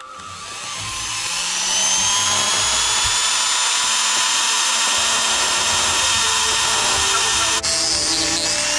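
Small high-speed power tool running against metal, cleaning corrosion off a toy's battery terminals. It builds up over the first couple of seconds, then holds a steady high whine and hiss.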